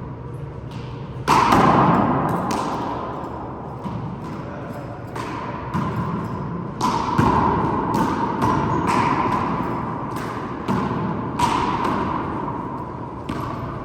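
Handball rally: about a dozen sharp, irregularly spaced smacks as the ball is struck by hand and hits the court walls and floor. Each hit echoes and leaves a brief ring.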